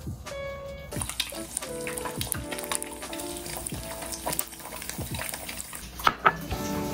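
Egg frying in hot oil in a pan, a steady sizzle that starts about a second in, under background music. Two sharp knocks near the end.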